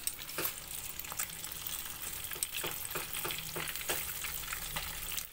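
Small tilapia deep-frying in hot oil in a pan: a steady sizzle with frequent sharp crackles and pops.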